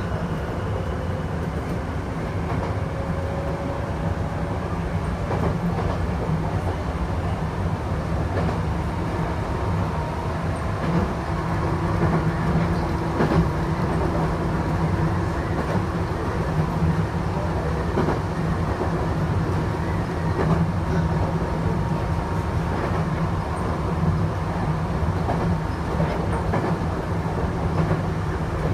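Chichibu Railway electric train running on the line, heard from inside the front of the car: a steady rumble of wheels on rail, with occasional clicks over rail joints and a faint whine that comes and goes.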